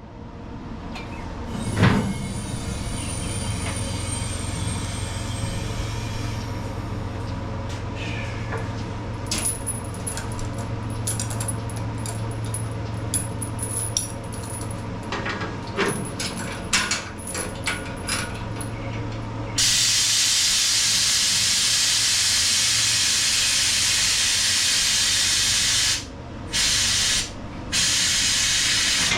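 A shop fan running steadily, with scattered light clinks of tools. About two-thirds of the way in, a loud steady hiss starts abruptly; it cuts out twice, briefly, near the end.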